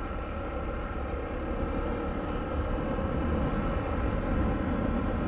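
Motorcycle running steadily on the road with heavy wind rumble, picked up by a small microphone mounted in the rider's helmet; the sound slowly grows a little louder.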